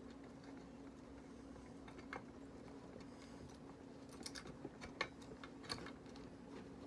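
Faint scattered clicks and light taps of small metal parts of a tinplate toy locomotive being handled and fitted together. The clicks come closer together about four to six seconds in, over a steady hum.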